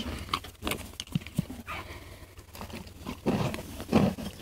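Horse chewing crunchy treats close to the microphone: a run of short, sharp crunches, with two louder, longer sounds about three and four seconds in.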